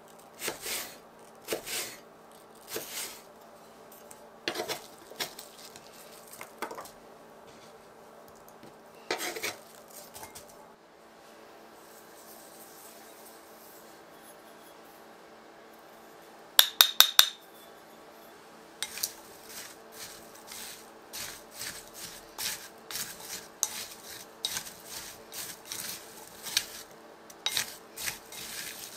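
A utensil clinking and scraping against a mixing bowl while ingredients are stirred. A little over halfway through come four quick ringing clinks, followed by rapid, close-spaced stirring strokes.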